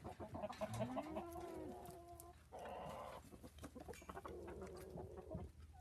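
Young chickens clucking and calling, a few short pitched calls followed by a hoarse, buzzy call a little past halfway: a young cockerel's rough attempt at a crow.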